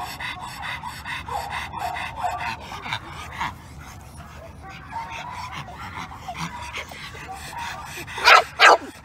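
Dogs panting and sniffing rapidly, about four breaths a second, while meeting through a wire fence, then two loud barks in quick succession near the end.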